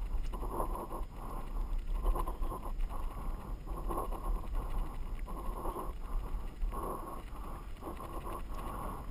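Mountain bike rolling fast over a loose gravel dirt track, with irregular crunching and rattling surges as the tyres and frame take the bumps. A steady wind rumble runs on the microphone under it.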